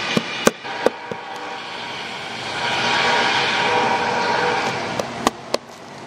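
A steel scraper blade picking at flaking red anti-fouling paint on a fibreglass sailboat rudder, digging out an osmosis blister: a few sharp clicks in the first second and two more near the end. A rushing noise swells and fades in the middle.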